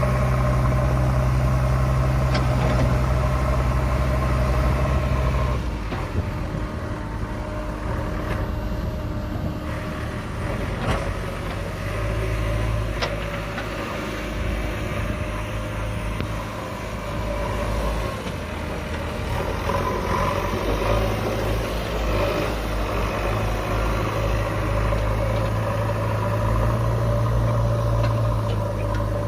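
Diesel engine of a JCB 5DX backhoe loader working at a dig, a steady low drone that drops about six seconds in and builds again later, with a few sharp knocks.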